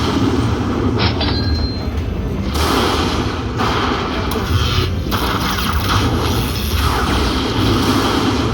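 Lightning Link slot machine playing its bonus-round sound effects: a loud, dense rumbling wash that swells and shifts every second or two, with a short high electronic tone about a second in.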